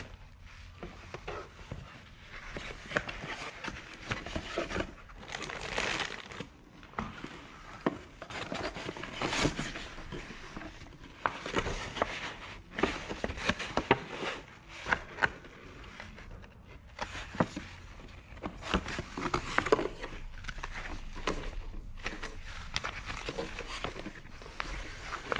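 Paper manuals and plastic packaging rustling and crinkling as they are handled and pulled from a cardboard box, with irregular crackles and sharp ticks.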